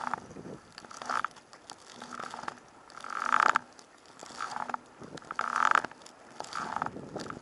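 Double-bladed kayak paddle strokes in choppy sea water: a splash about once a second as the blade dips in on alternate sides, over a low wash of water.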